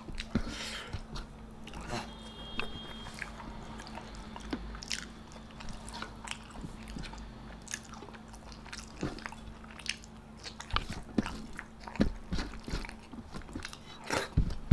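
A person chewing and biting food close to the microphone, with irregular crunchy bites and wet mouth clicks.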